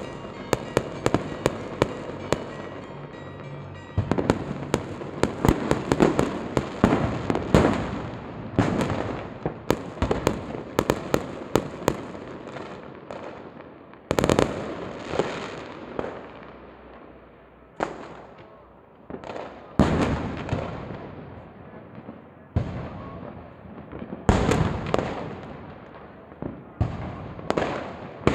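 Fireworks and firecrackers going off: rapid volleys of sharp, echoing bangs, thickest in the first dozen seconds, then single bangs and short clusters every second or two.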